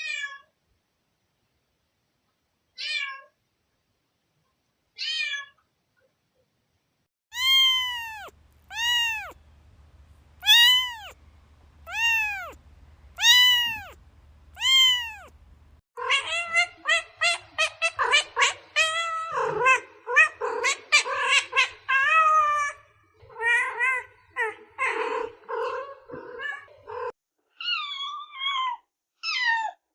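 Domestic cat meowing repeatedly. First come a few short calls, then a series of long meows that rise and fall in pitch, about one every second and a half. Then a long run of quick, overlapping meows, and a few more calls near the end.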